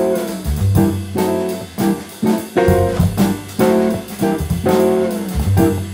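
Instrumental theme music led by guitar, with bass, its chords struck in a steady rhythm about twice a second.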